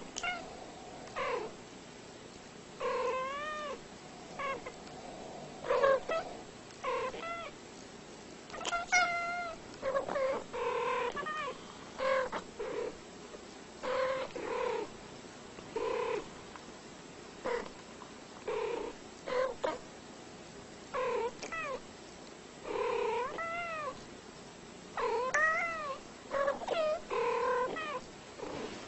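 Two domestic cats trading short meows back and forth, a brief call about every second, many of them bending up and then down in pitch.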